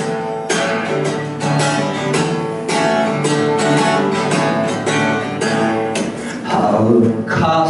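Acoustic guitar strummed in a steady rhythm, about two strokes a second, through an instrumental break in the song. A short, gliding voice sound comes in near the end.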